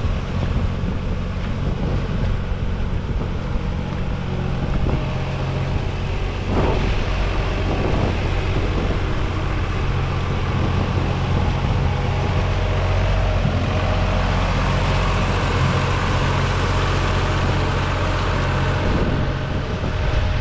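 Massey Ferguson 4WD tractor's diesel engine running steadily under load as its rear rotary tiller churns through wet paddy mud.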